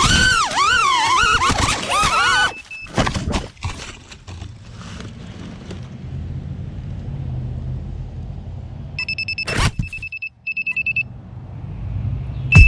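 The 5-inch FPV quadcopter's brushless motors and props whine, rising and falling in pitch with throttle. About two and a half seconds in, a few knocks come as it crashes and tumbles into grass, and the motors stop. Later the grounded quad gives two runs of rapid electronic beeps, and near the end the motors spin up again.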